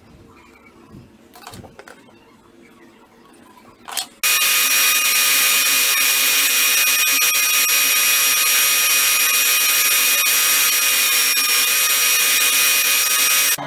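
Faint handling sounds for about four seconds, then a bench belt sander comes in suddenly and runs loud and steady with a high whine while a small piece of white PVC is held against the moving belt. It cuts off abruptly near the end.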